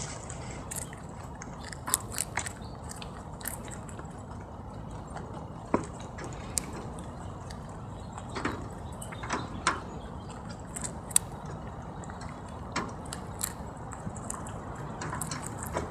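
Young rabbits biting and chewing a cucumber slice, with irregular crisp crunches.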